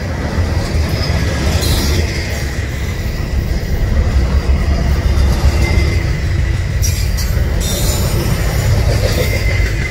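Double-stack intermodal train's well cars rolling past close by: a steady low rumble of steel wheels on rail, with a faint thin wheel squeal running underneath and a couple of brief metallic clatters, about two seconds and seven seconds in.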